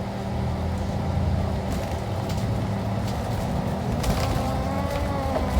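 City street traffic: vehicle engines running steadily with a low rumble and hum, with a few sharp clicks or knocks, mostly about four seconds in.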